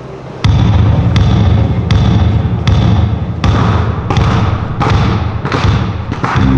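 Basketballs bounced on a hard floor in a steady rhythm, about one heavy bounce every three-quarters of a second, starting about half a second in, with a deep boom that carries on between bounces.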